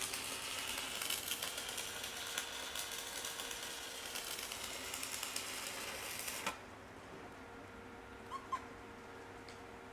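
Arc welding on the steel of a skid steer bucket: a steady frying crackle that stops suddenly about six and a half seconds in.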